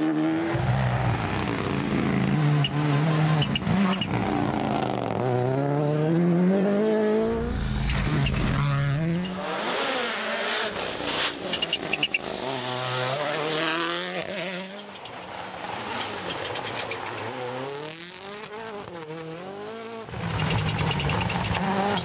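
Turbocharged four-cylinder WRC rally car engines being driven hard, several cars one after another. The engine note climbs and drops again and again through gear changes and braking for corners, with a run of sharp pops around ten to twelve seconds in.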